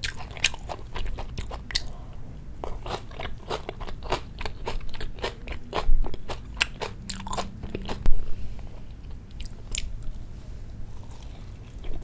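Close-miked chewing: irregular crisp crunches and wet mouth clicks, with louder ones about six and eight seconds in.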